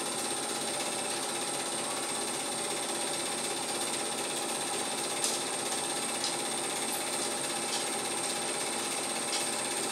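Cine film projector running: a steady mechanical clatter with a thin high whine and a few faint clicks.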